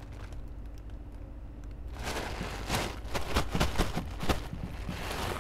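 Faint low hum, then from about two seconds in, irregular gritty rustling and crunching of sand as red onion bulbs are pulled up out of the sandy soil by their roots.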